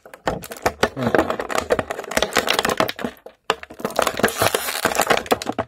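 Clear plastic blister packaging of an action figure crinkling and crackling in rapid, irregular bursts as it is handled and pulled apart, with a brief pause about three and a half seconds in.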